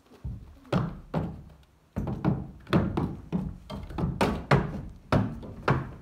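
A pony's hooves knocking on a cleated wooden loading ramp and into a pickup truck bed as it climbs in: about a dozen uneven thuds, a few spaced ones at first, then coming thick and fast from about two seconds in.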